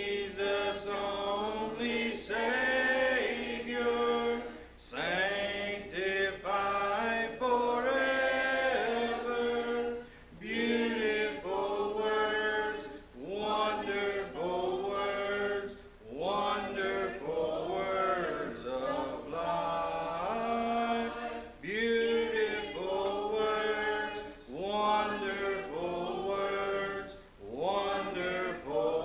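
A congregation singing a hymn a cappella, with no instruments: several voices hold each note together and move phrase by phrase.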